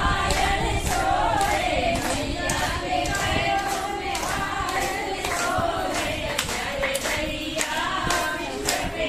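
A group of women singing a devotional bhajan together, with hand claps in a steady beat.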